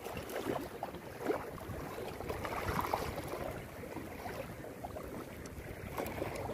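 Small waves lapping and splashing against the rocks of a seawall, an irregular wash of water noise.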